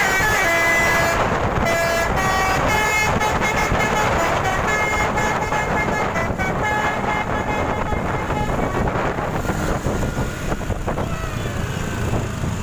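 Basuri telolet musical bus horn playing a long melody of quickly changing notes, clearest in the first half and thinning out later, over steady engine and street noise.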